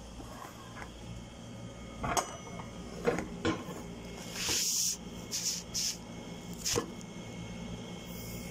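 Objects being handled and set down on a kitchen counter: a few separate knocks and clatters, and short hissing scrapes around the middle, over a steady low hum.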